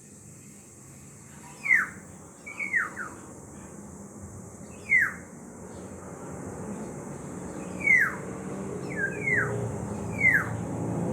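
Black-naped oriole giving short calls that each slide quickly downward, about seven in all, spaced a second or more apart with some in quick pairs. A low hum underneath grows louder near the end.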